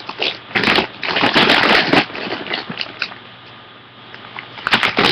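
Crinkling and rustling of plastic packaging being handled, in crackly bursts that are loudest in the first two seconds and again near the end.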